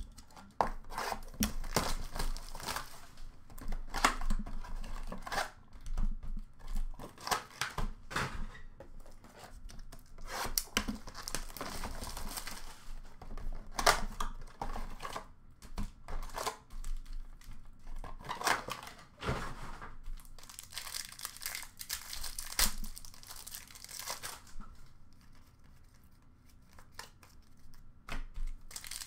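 Upper Deck hockey card packs being torn open by hand, their wrappers crinkling and tearing in irregular crackly bursts as the cards are pulled out and handled. It goes quieter for a few seconds near the end.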